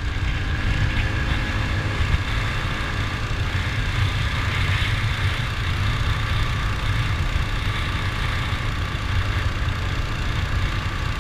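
Upgraded mini bike's engine running steadily, with a heavy low rumble throughout.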